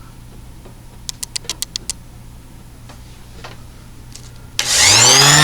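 A quick run of light clicks, then near the end the Ryobi RS290G 5-inch random orbital sander's electric motor switches on and spins up, its whine rising in pitch and settling into a steady run.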